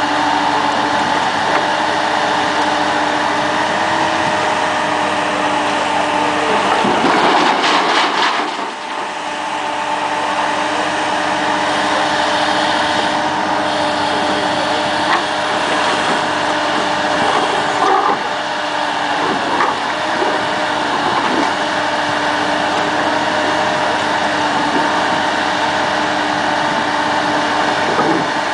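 Amphibious dredger's diesel engine and hydraulics running steadily while its excavator arm and clamshell bucket work, a constant hum with a steady tone over it. About seven seconds in there is a louder rushing surge lasting a second or so, and near the end water splashes as the bucket goes into the water.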